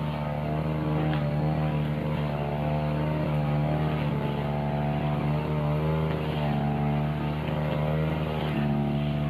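Tiger two-stroke backpack brush cutter with a cutting blade, its engine running steadily while it cuts grass, the pitch wavering slightly as the load changes.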